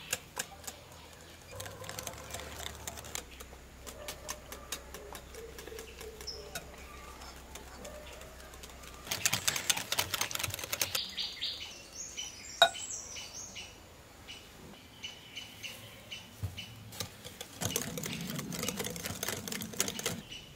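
Wire whisk beating butter and sugar in a glass bowl, its wires clicking rapidly against the glass, in faster spells about 9 and 18 seconds in, with one sharper knock about halfway through.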